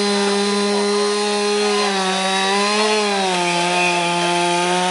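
Two-stroke chainsaw held at full throttle, cutting into a standing tree trunk to make the felling notch. The engine note holds steady, sagging slightly under load about halfway through.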